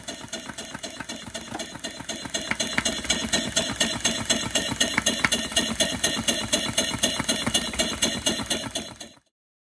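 Model Corliss steam engine running at full governed speed, with a quick, even clicking rhythm. It gets louder a couple of seconds in and cuts off suddenly near the end.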